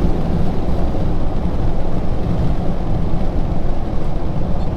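Ford 6.0 Powerstroke V8 turbo-diesel truck driving: a steady low rumble of engine and road noise.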